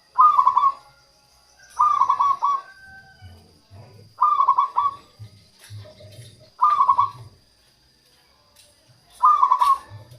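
Zebra dove (perkutut) cooing: five short trilled coo phrases, spaced about two to two and a half seconds apart.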